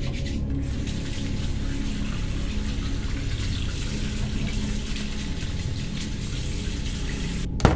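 Bathroom sink faucet running, water splashing into the basin, over a low steady drone. A single sharp hit near the end, the loudest moment.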